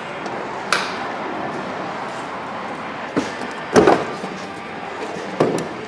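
A screwdriver backing out the Torx screws of a minivan tail light, and the plastic tail-light housing being worked loose: a few scattered clicks and knocks over a steady hiss. The loudest is a short scraping clunk a little past the middle.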